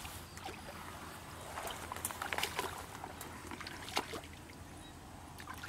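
Shallow muddy water sloshing and splashing as hands grope through it and feet shift in the mud, in small irregular splashes with a sharper splash about four seconds in.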